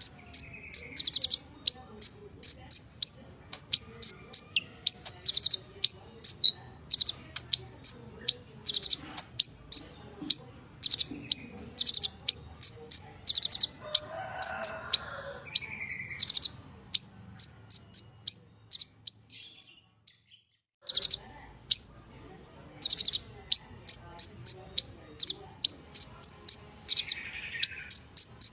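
Purple-throated sunbird (kolibri ninja) singing: a fast, continuous run of high, sharp chirps broken by short rattling trills, with a brief pause about two-thirds of the way through.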